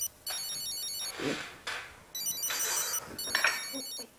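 Mobile phone ringing: an electronic ringtone of quick stepped tone patterns, repeated in bursts of under a second with short gaps.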